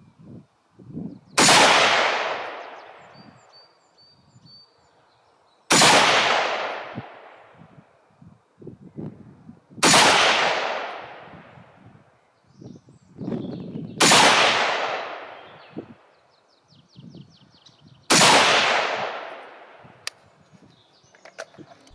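Five gunshots, evenly spaced about four seconds apart, each followed by a long echo that fades over a couple of seconds.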